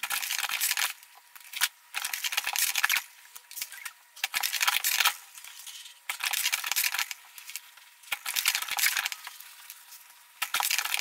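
Steel rule cutting die being slid along a strip of leather and set down on the clicker press's cutting board: short bursts of scraping and clinking, about every one to two seconds.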